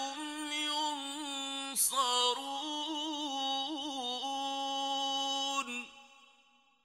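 Male Qur'an reciter in melodic recitation, holding a long drawn-out note with wavering ornaments and small pitch turns. The voice stops near the end and trails off into silence.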